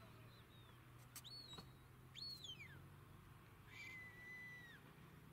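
Faint shepherd's whistle giving commands to a working sheepdog: a short whistle about a second in, a rising-then-falling whistle near two seconds, and a long steady lower note near the end.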